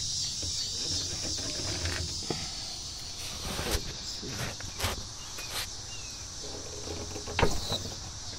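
Steady, high-pitched chorus of insects, with a few short sharp clicks and knocks scattered through it, the loudest near the end.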